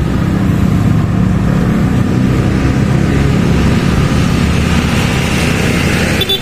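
A motor vehicle engine running steadily at low speed, with a hiss of air and road noise over it that grows a little brighter about five seconds in.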